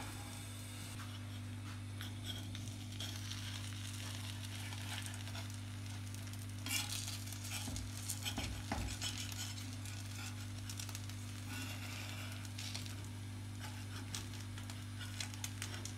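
A potato omelette of fries in beaten egg sizzling steadily in a frying pan over a gas burner, over a steady low hum. A few light scrapes and clinks of a metal spoon against the pan come around the middle.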